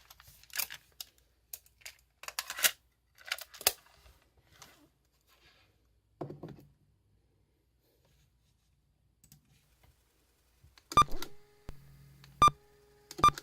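Clicks and clacks of a Panasonic RQ-SX41 portable cassette player being handled, then three sharp mechanical clicks about a second apart with a low steady hum running between the last ones.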